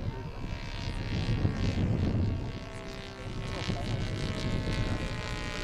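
Saito FA-200R3 three-cylinder four-stroke glow radial engine of a model racer plane in flight, a steady propeller drone overhead. It fades a little about halfway through, then grows louder again.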